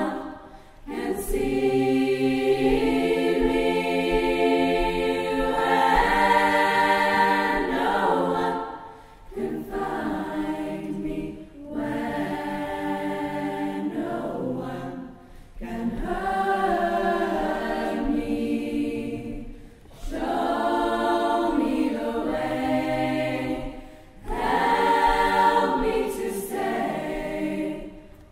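Combined male voice choir and mixed upper voices singing a cappella in sustained chords, in phrases a few seconds long broken by brief pauses for breath.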